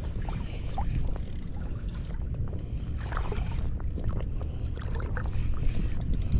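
Low, steady rumble of wind buffeting the microphone over shallow sea water, with scattered light clicks and ticks throughout while a spinning reel is wound against a hooked fish.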